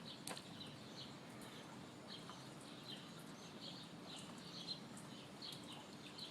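Faint bird chirps, short and repeated a few times a second, over a low steady background noise, with one brief click near the start.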